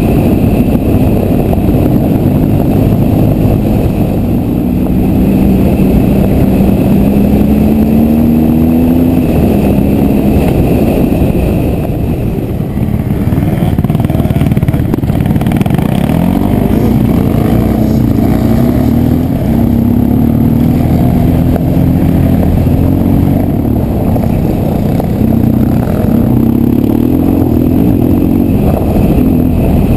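Motorcycle engine heard from on board while riding a gravel track, its revs rising and easing off a few times as it pulls along.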